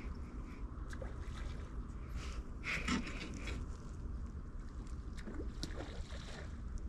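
Wind rumbling on the microphone, with irregular small water splashes and sloshes as a big surface pencil bait is worked in toward the rocks.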